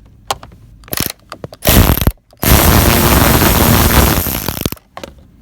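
Ratchet with a 7 mm socket spinning out a bolt from the instrument cluster mount: a few clicks, then a short run of rapid clicking about a second and a half in, and a longer run of rapid clicking that stops near the end.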